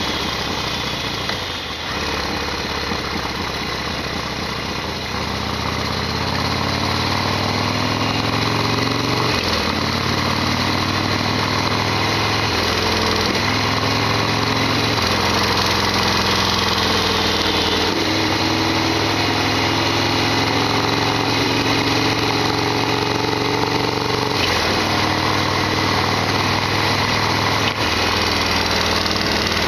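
Harley-Davidson XL1200R Sportster's air-cooled 1200 cc V-twin running under way, with wind noise. The engine note climbs and drops back several times, as when shifting through the gears.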